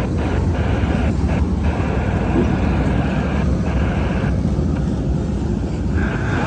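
Double-stack intermodal freight train's well cars rolling past, a loud, steady rumble of steel wheels on rail.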